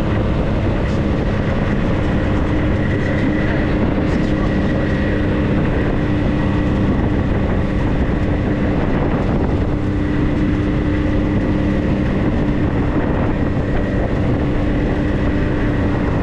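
A 4x4's engine and drivetrain running steadily under way: a constant low drone and rumble, with a faint high whine over it.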